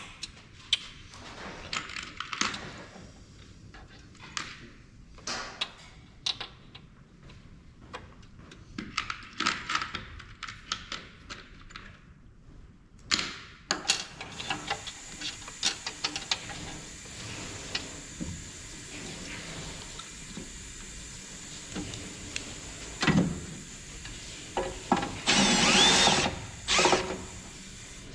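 Tools clicking and tapping on the printer's parts, then a power drill running steadily from about halfway through. The drill is loudest for a couple of seconds near the end, driving at a fastener.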